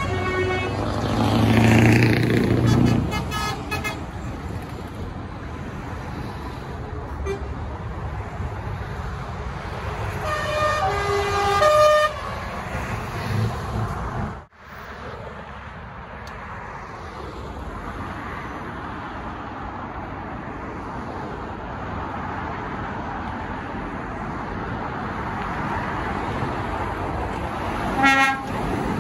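Arriving lorries passing on the road and sounding their horns over steady engine and traffic noise: a loud pass with a horn about two seconds in, a horn playing several different notes around eleven seconds in, and another short toot near the end.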